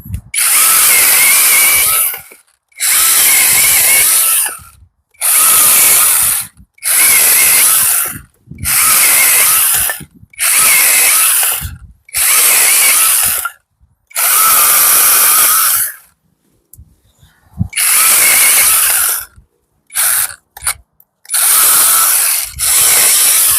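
8-inch brushless cordless mini chainsaw running in about a dozen short bursts of one to two seconds, with brief pauses between trigger pulls, while cutting wood. The motor and chain make a steady whine in each burst.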